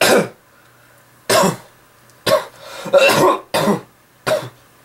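A person coughing in a fit of about six short coughs over four seconds, the sign of the illness the narrator says he is still getting over.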